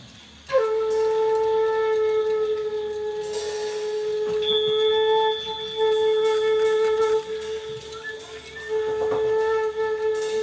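Live instrumental music: one long note held steady, starting suddenly about half a second in, with a second, much higher note sounding alongside it for a few seconds in the middle.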